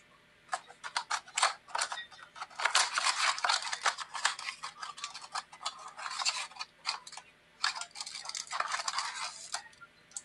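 A 2020 Panini Select mega box of trading cards being opened and emptied by hand: a rapid, irregular run of crinkling, rustling and clicking as the cardboard box and its wrapped card packs are handled.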